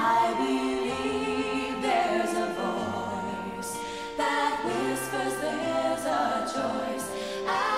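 Background music: a choir singing a sacred song in several parts.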